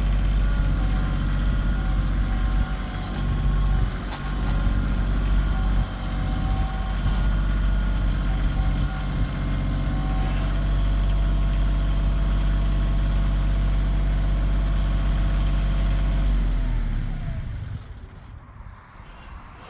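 A Bobcat CT2025 compact tractor's diesel engine runs steadily. About seventeen seconds in, it winds down and shuts off. The owner puts the shutdown down to the tractor's safety cutout, saying he must have forgotten to put it in park or neutral.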